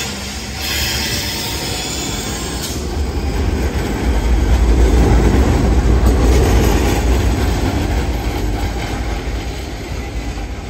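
Articulated low-floor tram passing close by, its steel wheels rumbling on the rails. The rumble builds to its loudest around the middle and then eases off.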